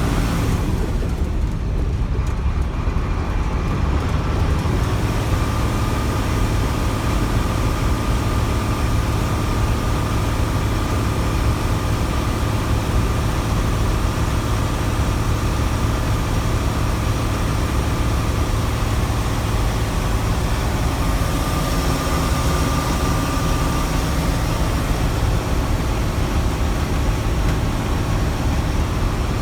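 International DT466 diesel engine of a 1995 school bus running steadily, with a faint steady whine that comes and goes. The engine's turbocharger is worn out, pretty much gone.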